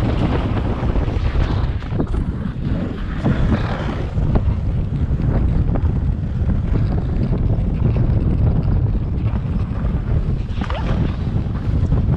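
Wind buffeting the microphone of a camera riding in a moving dog sled, a steady low rumble over the hiss of the sled's runners on snow, with a few light knocks.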